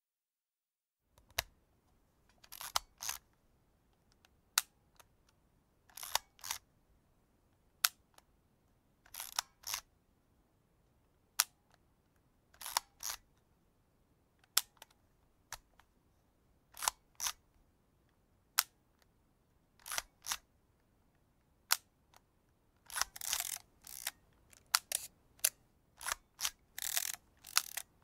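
Vintage film camera being operated over and over: a sharp shutter click, then about a second later a short rasping mechanical sound, repeating about every three seconds. Over the last five seconds the clicks and rasps come faster and closer together.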